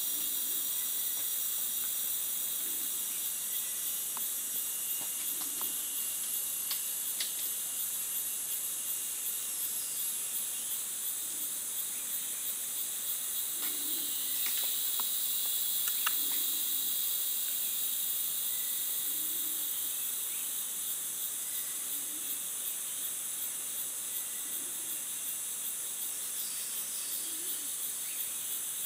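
Steady high hiss of a rainforest insect chorus, with several shrill held tones in it and a few faint ticks.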